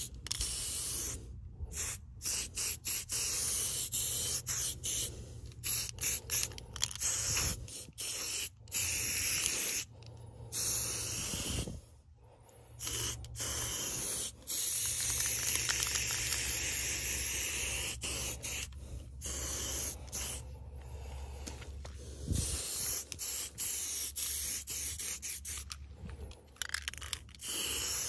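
Aerosol spray paint can hissing in stop-start bursts, many quick short sprays and a few longer strokes, as paint is laid down on the board.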